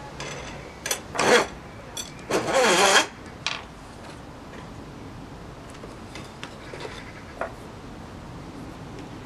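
Wooden rail support being worked loose and pulled out of a wooden jig: a few sharp knocks, then two loud scrapes of wood rubbing on wood, the second longer, followed by a few faint clicks.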